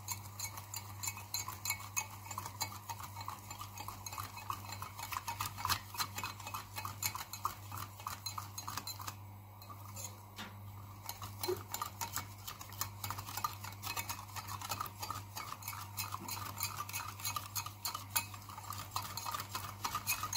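Wire whisk beating roasted flour into water in a glass bowl, a rapid run of clicks and scrapes as the wires strike the glass, mixing it smooth so no lumps form. The beating eases off briefly about nine seconds in, then carries on.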